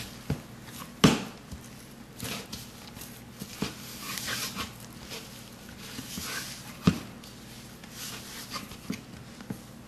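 Hands kneading whole wheat dough in a wooden bowl: soft irregular squishing and slapping of the dough, with scattered clicks and two sharper knocks, one about a second in and one later.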